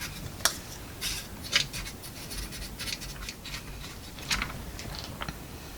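Scattered light clicks and scraping from handling the plastic case and small parts of a Yamaha PortaSound PSS-30 keyboard as it is reassembled, with a handful of sharp taps.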